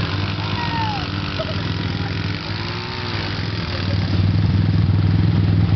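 Yerf-Dog go-kart engine running steadily, getting louder about four seconds in.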